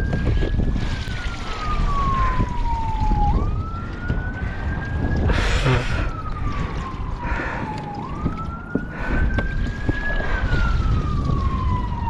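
A siren wailing in slow cycles: each one rises quickly, then falls slowly, repeating about every four and a half seconds. It sits over a low rumbling noise, with a short loud burst of noise about five seconds in.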